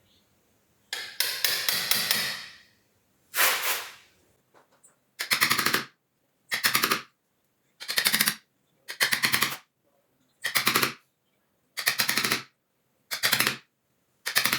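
Short bursts of rapid clattering strikes repeating about once every second and a half, after one longer burst near the start, as a recess is cut in the edge of a plywood door to countersink the lock's metal trim plate.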